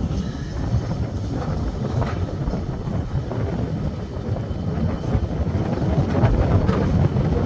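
Heritage railway passenger train running along the line, a steady low rumble of wheels and running gear.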